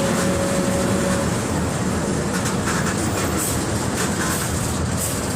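Mercedes-Benz OF-1721 BlueTec 5 bus diesel engine running steadily, heard with the rattle of the bus body. A thin steady whine stops about a second in.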